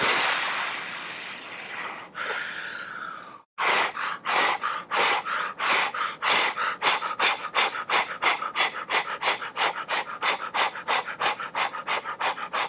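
A woman breathing forcefully: two long blowing exhales, then rapid rhythmic breaths at about four a second, a steady panting-like breathwork.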